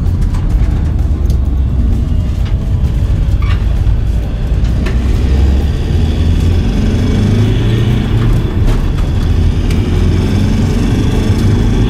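Inside the cab of a Peugeot Expert van under way: steady deep rumble of its 2.0 HDi diesel engine and tyres on the road, with a few light clicks.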